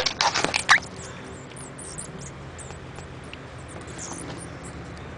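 A mouse squeaking as a cat catches it: a quick run of sharp, high squeaks in about the first second, then only faint steady background.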